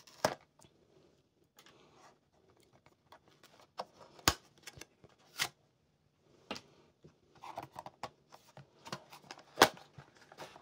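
A small cardboard blind box being opened by hand: a few sharp clicks and taps of the card box and its flaps, the loudest near the end, with soft scraping and rustling of card in between.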